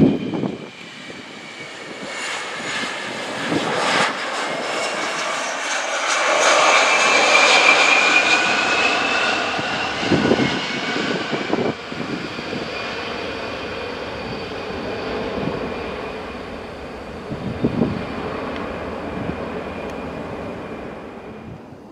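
Boeing KC-135R Stratotanker's four CFM F108 turbofan engines passing on a touch-and-go. Jet noise carries a high fan whine that bends in pitch, is loudest about seven to nine seconds in, then slowly fades.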